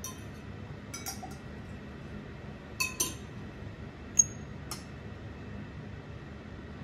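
Metal bar tools and glassware clinking as they are handled: a bar spoon, jigger and shaker tin touched, picked up and set down. About six light clinks in the first five seconds, the loudest a short ringing metal tap about four seconds in.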